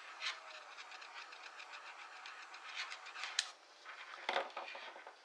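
Small handheld heat gun blowing steadily while shrinking heat-shrink tubing over a soldered battery connector; the blowing stops about three and a half seconds in, followed by a few light knocks.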